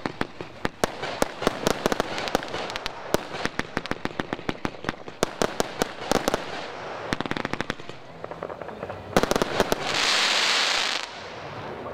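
A fireworks barrage firing: shots launch and break in quick succession, several sharp bangs and pops a second. Near the end comes a louder tight cluster of bangs, then a hissing fizz of about a second.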